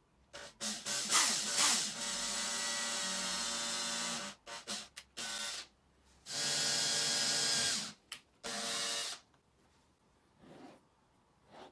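Cordless drill-driver driving screws through a steel drawer slide into OSB. The motor whines in a few short pulses, then runs steadily for about two seconds, pulses again, and makes two more shorter runs near the middle and later on.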